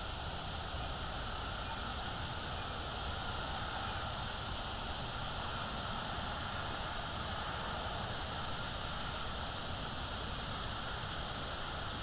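Steady outdoor background from the nest camera's microphone: an even hiss with a low rumble beneath it, unchanging throughout, and no calls from the eagle.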